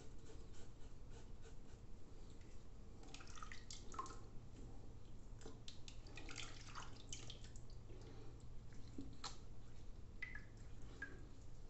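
A few light scrapes of a cartridge razor at first, then water splashing and dripping as a face is rinsed with handfuls of water.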